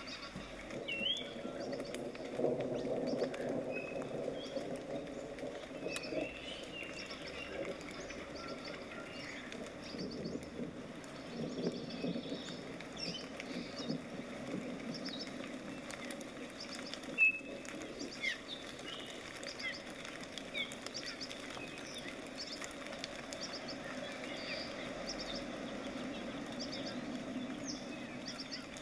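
Small birds chirping and twittering in short calls over a low, steady background noise, with one sharp click about halfway through.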